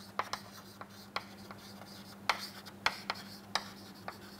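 Chalk on a chalkboard as a line of words is written: irregular sharp taps and short scratches as the chalk strikes and drags across the board, a dozen or so strokes.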